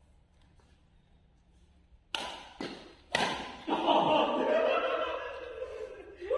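Three sharp racket-on-shuttlecock hits about half a second apart in a badminton rally, followed by a player's drawn-out shout lasting about two seconds.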